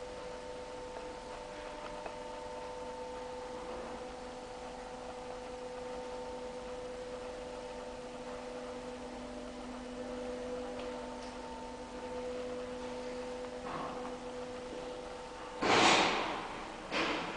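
Steady hum of several held tones, then two brief loud rushes of noise near the end, the first lasting about a second and the louder of the two.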